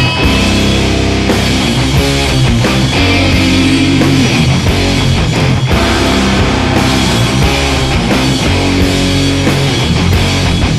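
Loud rock music with distorted electric guitars and a steady drum beat.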